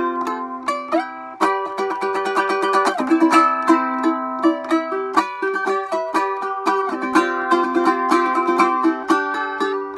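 Instrumental music on plucked string instruments: a quick, steady run of picked and strummed notes with no singing.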